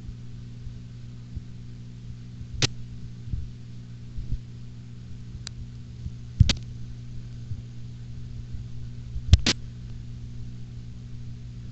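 Steady low electrical hum from the aquarium's running equipment, with a few sharp clicks scattered through, two of them close together near the end.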